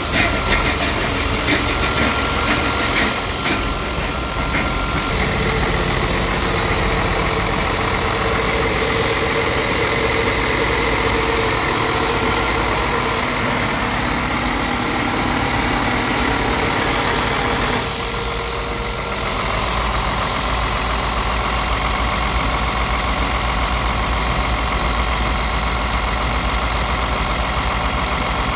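Scania R tractor unit's inline diesel engine idling steadily, heard close up in the open engine bay with the cab tilted forward.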